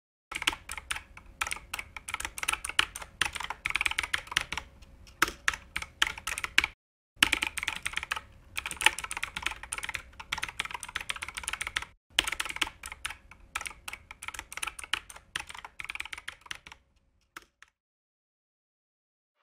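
Computer keyboard typing sound effect: a fast, uneven run of key clicks with two short breaks, about seven and twelve seconds in, stopping a couple of seconds before the end.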